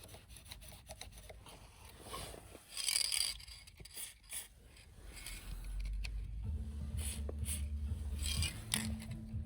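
Hand tools and metal parts scraping and rubbing, with a few small clicks. A low steady hum sets in about halfway through.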